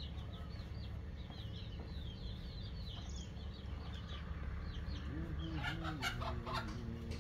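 Small birds twittering in quick high chirps for the first few seconds, then a chicken clucking from about five seconds in, over a steady low background noise.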